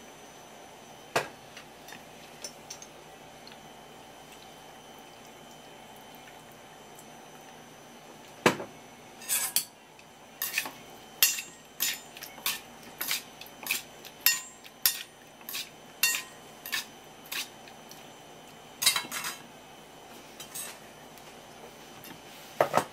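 A stainless steel mixing bowl clinks and knocks against a wooden cutting board as sliced raw fish is mixed by hand in sauce. There are a few scattered knocks at first, then a quick run of sharp clinks for several seconds about halfway through, and a few more near the end.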